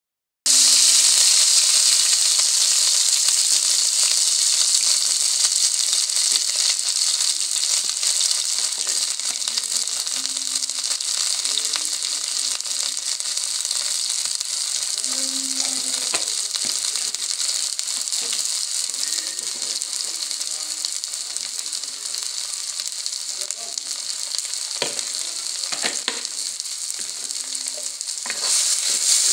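Food frying in hot oil in a black wok, a steady sizzle that eases off slowly and then flares up again near the end.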